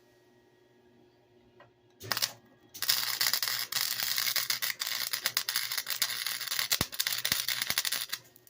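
Welding arc crackling on a car door panel: a short tack about two seconds in, then a steady sputtering bead lasting about five seconds that stops just before the end.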